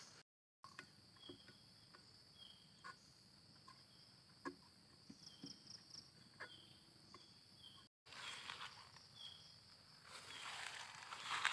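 Faint steady high trill of insects with short chirps recurring every second or so and scattered light clicks. After a short break near the two-thirds mark, rustling and handling noise rises toward the end.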